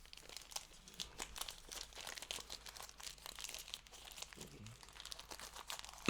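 Faint crinkling and rustling of plastic card sleeves being handled, a steady scatter of small crackles.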